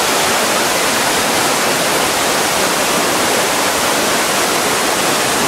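Salto Álvar Núñez, one of the Iguazú Falls, pouring heavy muddy water over rock: a loud, steady rush of falling water.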